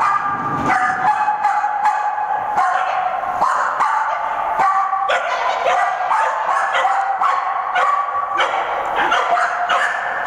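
Pinscher barking over and over in quick, high-pitched yaps, about two or three a second without a break, while running an agility course.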